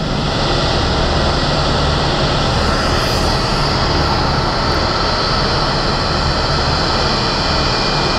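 Airbus A319 jet engines running as the airliner taxis: a steady high whine over a rumble.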